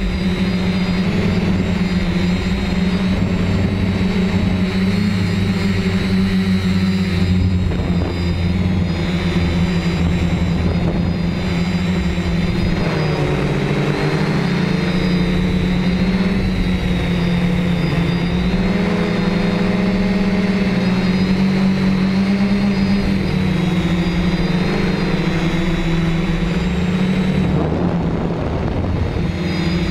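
Quadcopter's four brushless motors (Tiger Motor MT2216 900kv) spinning 10-inch APC propellers, a steady droning hum whose pitch wavers up and down as the flight controller varies the throttle, with wind rushing over the onboard microphone.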